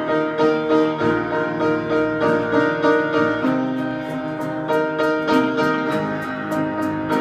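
Piano accompaniment playing an instrumental passage between sung sections, with repeated chords at a steady pulse over sustained notes.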